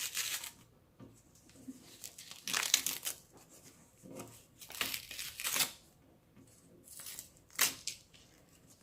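A paper envelope is torn and crumpled open by hand, in several short bursts of ripping and crinkling with pauses between.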